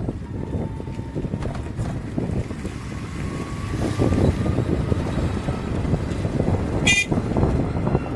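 Highway road and traffic noise with wind buffeting the microphone, growing louder about halfway through. A brief high-pitched sound cuts in about seven seconds in.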